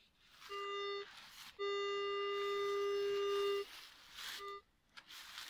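Metal detector sounding its steady, buzzy audio tone three times at one pitch as the coil sweeps over a buried target: a short tone about half a second in, a long tone of about two seconds, then a brief blip near the end.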